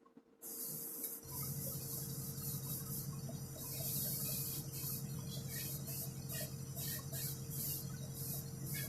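Airbrush spraying paint, a hiss that comes and goes as the trigger is worked, with a low steady motor hum, likely its compressor, starting about a second in.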